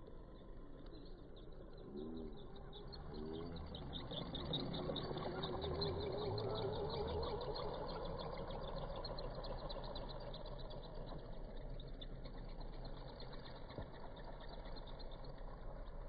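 Electric RC car motor whining as the car drives about, its pitch wavering up and down and loudest a few seconds in. A fast, steady, high-pitched pulsing runs behind it.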